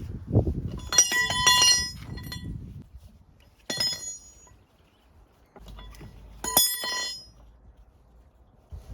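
Metal tools clinking and ringing during tyre work: a quick run of strikes about a second in, one near four seconds and another about six and a half seconds in, with dull knocks in the first few seconds.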